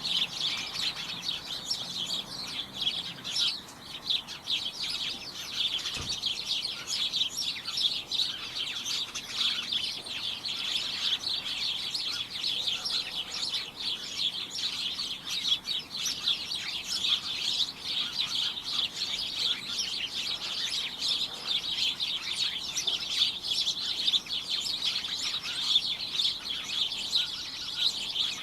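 A flock of small birds chirping and tweeting together in a dense, continuous chatter of many overlapping short chirps.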